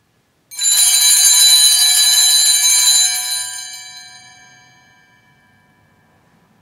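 Sanctus bells, a cluster of small altar bells, rung continuously for about two and a half seconds and then left to ring out and fade. This marks the elevation of the chalice after the words of consecration.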